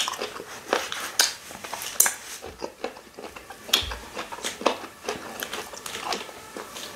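Close-up eating sounds of fufu and ogbono soup eaten by hand: irregular mouth clicks, lip smacks and chewing, with fingers being sucked clean.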